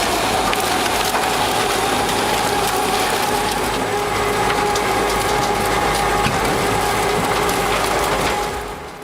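A powered wood-grinding machine chewing through wood: a loud, steady machine whine on two held tones over continuous cracking and splintering of wood. It fades down near the end.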